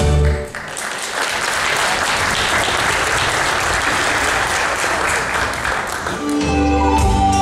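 Audience applauding after the dance music stops on its last note. Near the end, the next piece of music begins with steady held tones.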